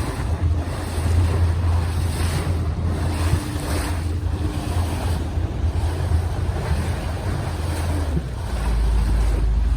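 Boat engine humming low under wind buffeting the microphone and water rushing past the hull, the noise swelling and easing every second or so. About eight seconds in the engine's note drops lower and steadies.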